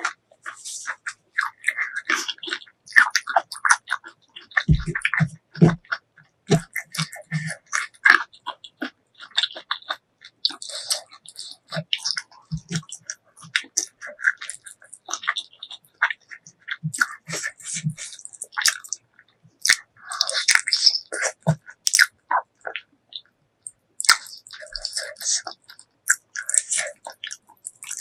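Close-miked chewing of spicy pork leg curry and rice: irregular wet smacks, clicks and biting sounds, with a few soft low thuds about five to seven seconds in.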